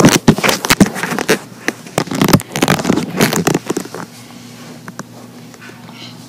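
Rustling and knocking of a handheld phone being moved about close to its microphone, loud for about four seconds, then dying down to a faint low hum.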